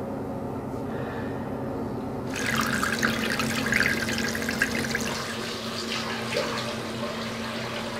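Bathroom tap turned on about two seconds in, water running from the faucet into a washbasin and splashing over hands as the face is washed. Under it is a steady low hum.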